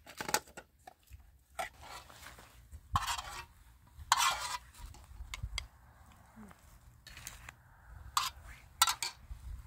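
Dishes clinking and scraping as food is ladled from a metal pot into plates: a string of separate clinks and short scrapes at uneven intervals.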